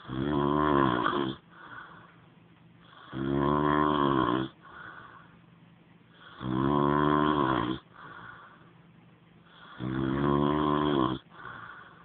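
A man snoring: four loud, pitched snores, each over a second long, coming regularly about every three seconds, with a much softer breath between them.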